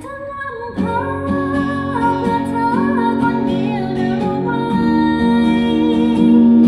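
A woman singing a song to acoustic guitar, played from a phone over Bluetooth through a Polk MagniFi MAX soundbar. The singing comes in about a second in.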